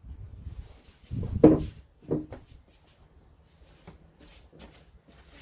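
A person getting up from a seat at a table: a heavy thump and rub of furniture about a second in, a smaller knock just after, then a few faint clicks.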